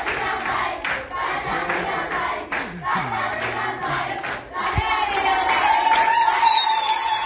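A crowd of children and adults singing together and clapping in time, about two claps a second. From about five seconds in, one voice holds a long high cry over the singing.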